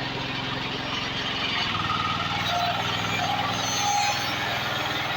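A heavy vehicle's engine running steadily, with a low even pulsing throughout.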